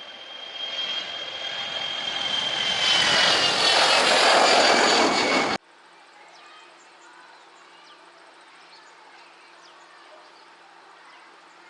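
Airliner engines growing steadily louder as the plane passes close, with a high whine that drops slightly in pitch near the loudest point. The sound cuts off abruptly about five and a half seconds in, leaving a much quieter background with faint chirps.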